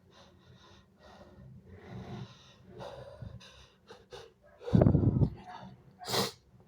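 A person's gasping, hitching breaths building up to a sneeze, then a loud wet sneeze about five seconds in that blasts the microphone. A second, sharper burst of breath follows about a second later.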